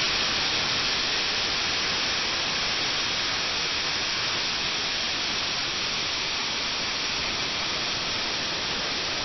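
Sartaj aluminium pressure cooker venting steam through its weight valve with a steady, even hiss: the cooker is at full pressure and whistling, one of the 3 to 4 whistles the khichdi is cooked for.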